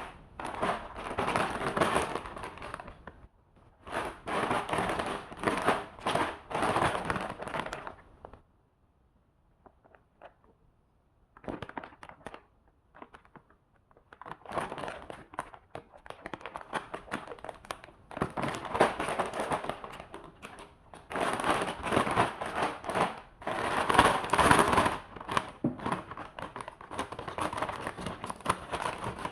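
Plastic packaging crinkling and rustling as it is handled, in bursts of a few seconds each, with a quiet pause of about three seconds near the middle.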